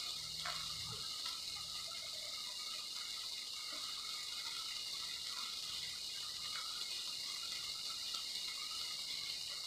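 Hamburger patties frying: a steady sizzling hiss.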